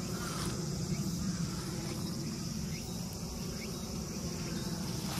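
A steady, high-pitched chorus of insects such as crickets, droning without a break, over a low steady rumble.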